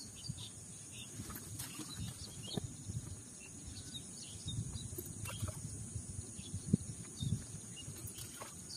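Outdoor pond-side ambience: a steady high-pitched insect drone, low wind rumble on the microphone, and scattered short faint chirps and ticks.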